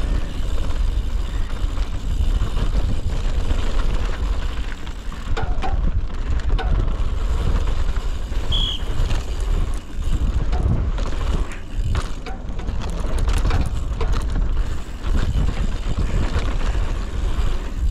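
Mountain bike rolling fast down a dirt trail: heavy wind rumble on the microphone over steady tyre noise, with scattered knocks and rattles from the bike. A brief high squeak comes about halfway through.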